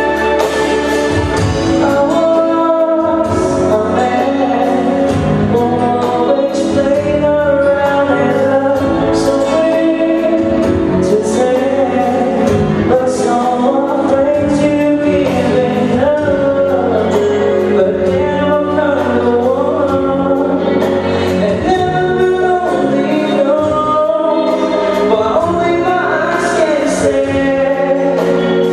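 A live band playing loud amplified music, with a singer's voice gliding over sustained chords.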